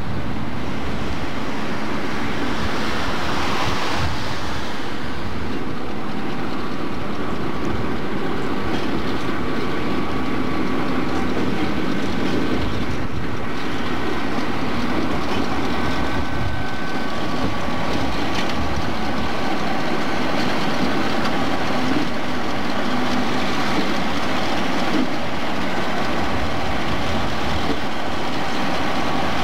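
Chicago Central & Pacific diesel freight locomotives running past with their train, a steady engine drone mixed with wheel and rail noise.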